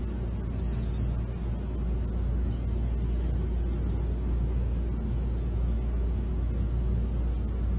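A steady low rumble of background noise, even throughout, with no distinct events.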